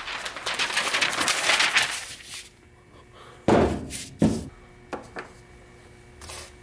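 Stiff brown paper crinkling for about two and a half seconds as a sheet is spread on the workbench. Then two dull thunks, about a second apart, as a red short body hydraulic ram is set down and handled on it, followed by a few lighter knocks.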